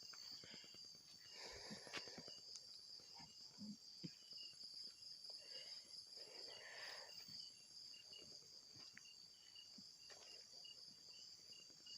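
Faint night insect chorus: crickets keep up a steady high buzz, with one repeating a short chirp at an even pace. A few soft rustles come through.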